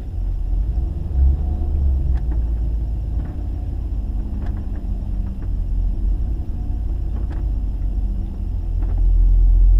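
Truck engine running at low speed with a steady low rumble while the truck creeps forward a little at a time; the rumble swells louder near the end.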